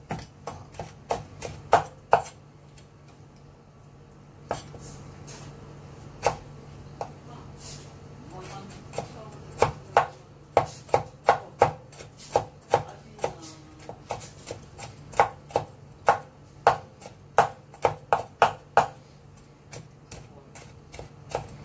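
Kitchen knife chopping salted mustard greens on a wooden cutting board, mincing them fine: irregular knocks of the blade on the board, with a pause of about two seconds near the start and quicker runs of strokes later.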